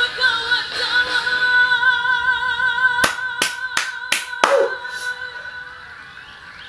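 A long sung note held steady and slowly fading, with a person clapping their hands six times over it, about three to five seconds in; the claps are the loudest sounds.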